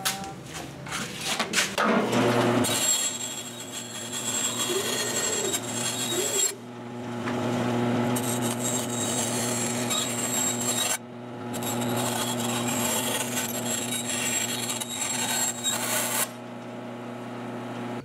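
Band saw running and cutting a thin polycarbonate sheet: a steady motor hum under a rasping cutting noise. It drops out briefly twice and stops about two seconds before the end.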